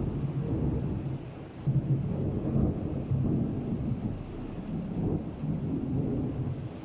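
Thunderstorm recording: low rolling thunder that swells and fades several times, with a fainter hiss of rain behind it.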